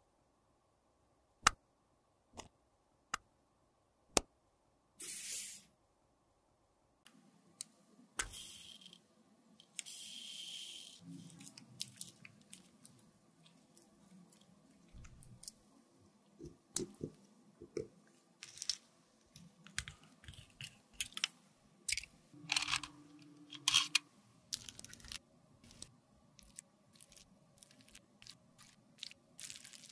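Close-miked makeup handling. A few sharp clicks, like a compact case, come in the first few seconds. From about seven seconds in there is dense crunching, crackling and scraping as lipstick is crumbled and picked at with a plastic floss pick.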